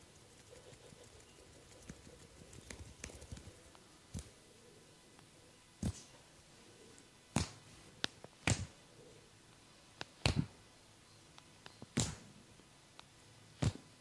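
Sharp massage strikes landing on the body, about eight separate hits spaced irregularly a second or two apart, after a few seconds of faint rustling and small crackles.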